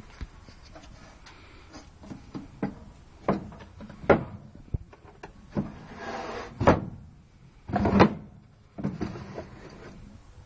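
A kitchen cupboard door being opened, with a string of knocks and clunks as it swings and things inside are handled; the loudest bumps come about four, seven and eight seconds in.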